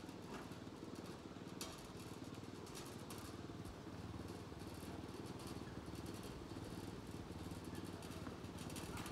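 Small crawler transporter's engine running steadily at an even low pulse, with a few faint clicks over it.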